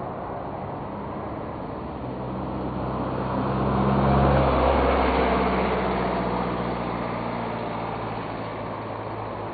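A motor vehicle passing by: engine and road noise swell over about two seconds, are loudest about four seconds in, then fade away with a slight drop in pitch.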